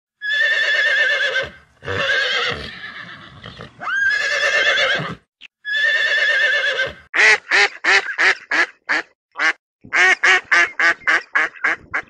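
Horse whinnying: four long, quavering calls, each about a second, then a fast run of short calls, about three to four a second.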